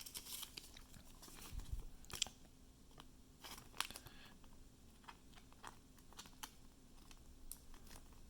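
Faint handling of trading cards and a plastic card sleeve: scattered small clicks, taps and crinkles.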